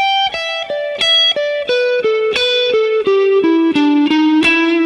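Electric guitar playing a single-note E minor pentatonic lick with chromatic passing notes, a quick run of notes stepping down from the high E string to the root E. It ends on a held root note with a little vibrato.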